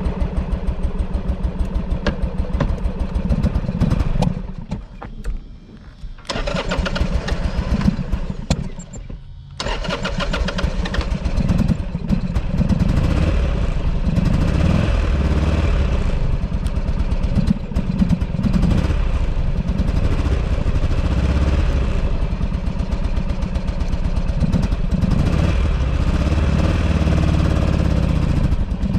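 2008 Buell Ulysses XB12XT's air-cooled V-twin running with an uneven pulse. It nearly dies twice in the first ten seconds and picks back up, then settles into steady running. The stumbling fits a bike that has sat unused for months and is not happy about it.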